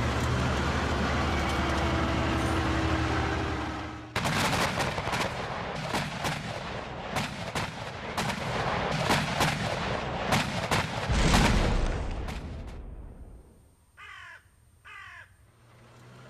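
Archive war-film soundtrack: tank engines rumbling steadily for about four seconds, then a long stretch of rapid, irregular gunfire with a heavy low boom about eleven seconds in. After a short lull, a crow caws twice.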